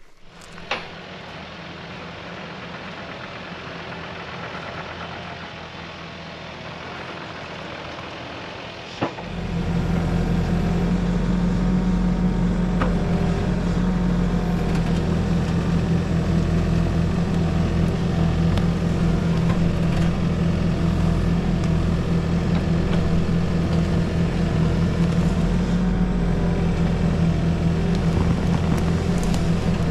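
Engine running steadily, then much louder from about nine seconds in, with a sharp knock near the start and another just before the jump.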